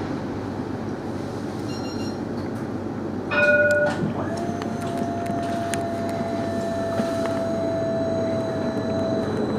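Cab hum of a CAF Urbos 3 tram standing at a platform. About three seconds in comes a short, loud electronic beep, then a steady whine of unchanging pitch holds for about five seconds as the tram starts to pull away.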